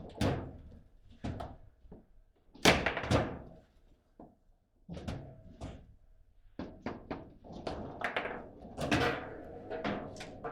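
Table football in play: a string of sharp thunks and knocks at irregular intervals as the ball is struck by the players and bangs against the table. The loudest hit comes about a quarter of the way in.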